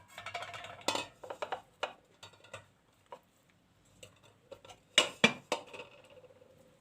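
Kitchen pots and dishes being handled: scattered clinks and knocks, with a few louder knocks close together about five seconds in.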